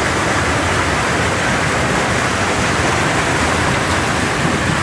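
Creek water rushing steadily, a constant even noise.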